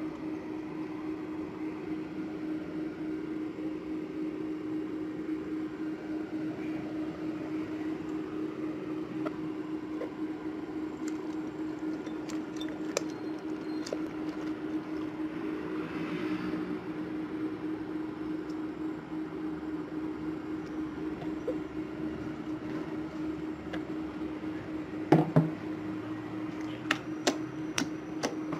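Jiggly water slime being stretched and dropped by hand, over a steady hum. In the last few seconds fingers poke into the slime, giving a run of sharp clicks and pops.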